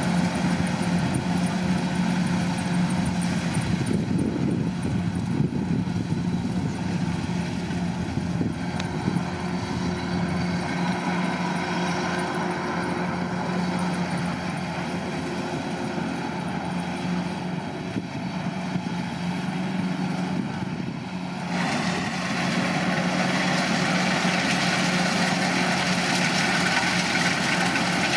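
Kubota DC-105 combine harvester running steadily, its diesel engine hum mixed with the noise of the working machinery. About 21 seconds in, the sound grows louder and brighter in the upper range.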